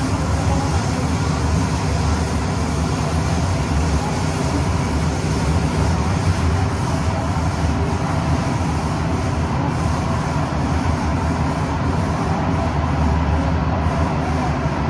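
Singapore MRT Thomson-East Coast Line train running between stations, heard from inside the carriage: a steady, loud rumble and rush of wheels on rail, heaviest in the low end.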